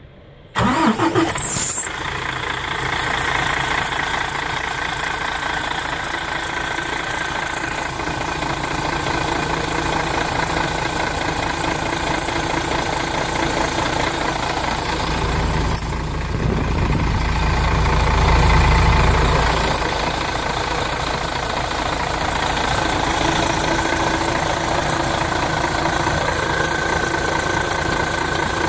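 Mercedes-Benz OM457hLA 12-litre inline-six turbo diesel in a Citaro bus starting: it is cranked and catches about half a second in, then settles into a steady idle. For a few seconds about midway it swells louder with a deeper rumble before going back to idle.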